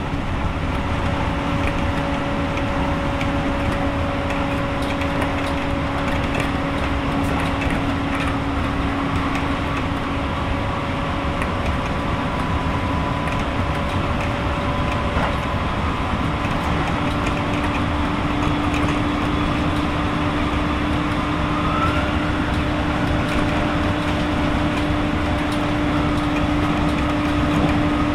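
Keisei 3000 series electric train running at speed, heard from inside the car behind the driver's cab: a steady whine from its Toyo IGBT-VVVF traction motors and TD-drive gearing over the rumble of wheels on rail. The whine's pitch steps up slightly about halfway through.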